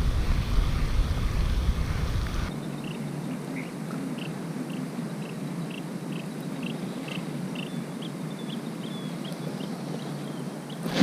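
Steady hiss of pouring rain and wind. The low rumble drops out abruptly about two and a half seconds in. After that a faint series of short high chirps repeats about twice a second until near the end.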